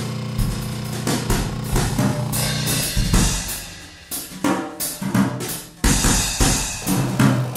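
Background music: a drum-kit beat with snare and bass drum over a sustained bass line. It thins out a little past the middle, then the drums come back in.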